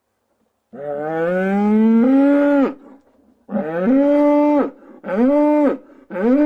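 Cow mooing: one long call that rises in pitch, starting under a second in, then three shorter moos in quick succession about a second apart.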